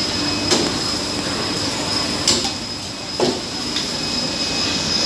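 Indoor wet-market ambience: a steady din with a thin, high steady whine running through it. A few sharp clacks come about half a second in, at about two and a quarter seconds and at about three and a quarter seconds.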